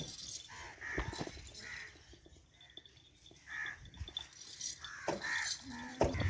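Crows cawing repeatedly in short harsh calls, with a few sharp knocks in between.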